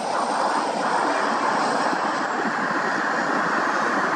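High-wing single-engine light aircraft landing: a steady rushing engine noise as it flares and settles onto the runway.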